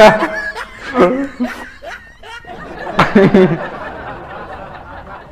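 Laughter and snickering in a few short bursts, the loudest about three seconds in, fading to a low murmur near the end.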